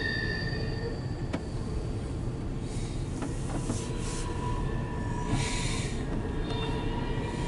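CSX intermodal freight train rolling past with a steady low rumble of wheels on rail, heard from inside a car. Partway through there is a faint steady whine, and two brief rushes of hiss come about three and five and a half seconds in.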